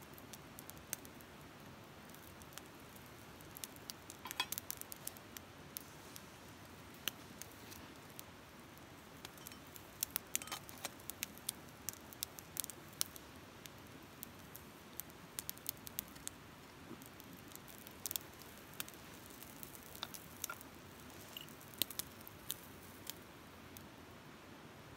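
Wood campfire crackling: scattered, irregular sharp pops and snaps, coming in clusters, over a faint steady hiss.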